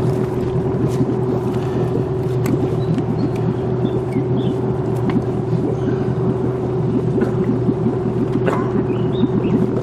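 A small boat's engine runs steadily with an even hum. Light clicks and knocks of a net and fish being handled on the metal deck sound over it.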